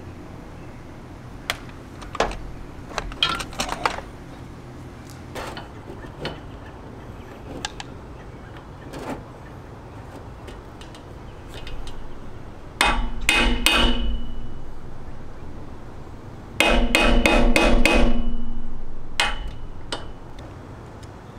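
Metal-on-metal hammer strikes on the cable hardware: a run of about four quick blows, then after a pause a longer run of about six, each with a short metallic ring, and one more blow after. Lighter clinks of metal fittings being handled come earlier.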